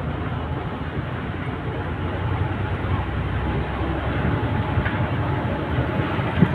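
Steady road and wind noise of a moving vehicle, an even rushing sound.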